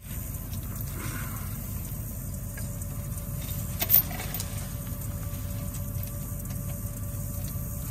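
Engine idling steadily, with a single short metallic clank about four seconds in as a tow chain is hooked to the front of the tractor.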